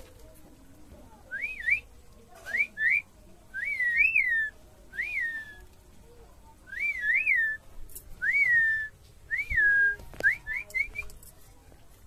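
A series of clear whistled phrases, about ten in all: each note sweeps quickly up and then glides down, some come in pairs, and a quick run of three short rising notes closes the series.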